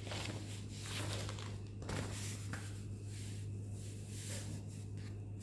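Faint rustling of notebook paper as a page is turned and smoothed down, a few soft brushes and crinkles, over a steady low hum.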